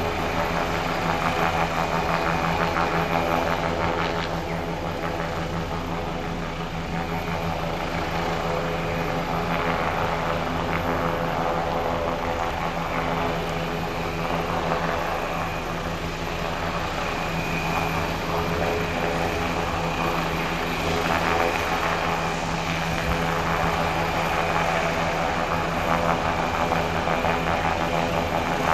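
Helicopter hovering low, its rotor and engines running steadily with a constant pitched hum over a dense rushing noise.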